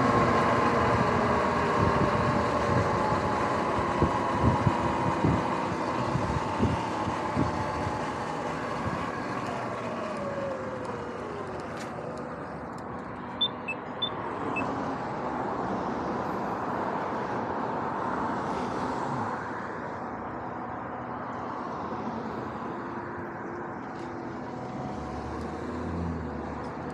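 Electric dirt bike's motor whine falling in pitch as the bike slows, with thumps from the road surface. The whine then gives way to the steady sound of passing road traffic.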